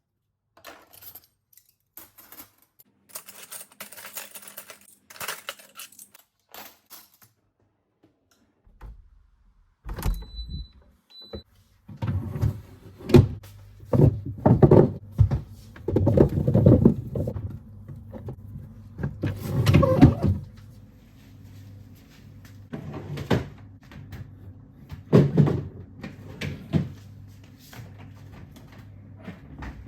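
Household handling sounds: objects being moved, set down and knocked, with clicks and clatter, then a run of loud thuds. A steady low hum comes in about ten seconds in and carries on under them.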